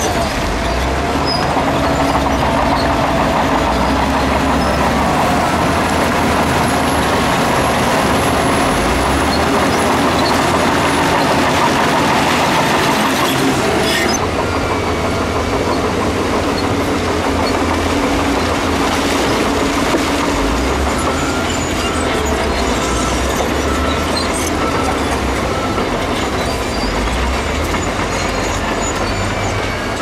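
Crawler bulldozer at work: a diesel engine running under load with steel tracks clanking and squealing. The sound changes abruptly about halfway through.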